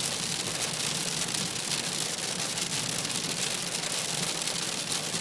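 Heavy rain and hail pelting the roof and windscreen of a moving car, a dense patter of small hits, heard from inside the car over a steady low road hum.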